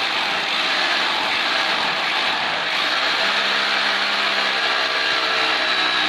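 Corded electric drill running continuously as it bores into the wall, its motor whine steadying about three seconds in.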